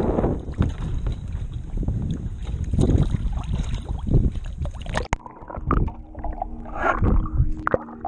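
Water sloshing and buffeting against an action camera's microphone at the surface, then about five seconds in the sound cuts suddenly to a quieter, muffled underwater sound with scattered bubble clicks.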